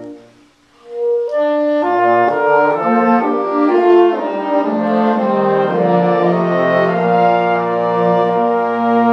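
Small wind ensemble of brass and woodwinds playing slow sustained chords: a held chord is released at the start, one instrument sounds a lone note in the short pause, then the group comes back in and moves from chord to chord, ending on a long held chord.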